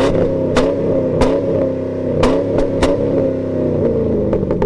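A car engine revving and running, with several sharp clicks in the first three seconds.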